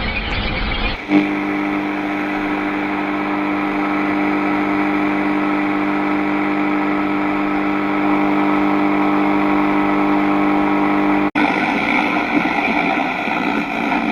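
Steady electronic drone of a staged broadcast intrusion: a buzzing tone with many stacked overtones. It begins after a second of noisy hiss, cuts out sharply about eleven seconds in, and returns rougher and noisier.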